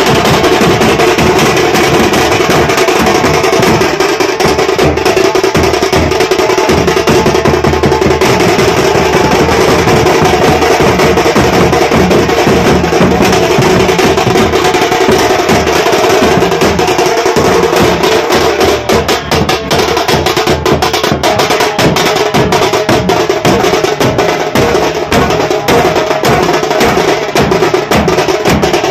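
A band of drummers beating slung, stick-played drums in a fast, dense, unbroken rhythm, very loud and close.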